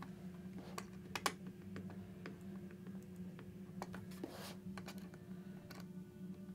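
Small, scattered clicks and taps of an Allen wrench and plastic as fasteners are turned down by hand into a motorcycle helmet's shell to hold a Bluetooth intercom unit. The loudest click comes a little over a second in, with a brief scrape about four and a half seconds in, over a low steady hum.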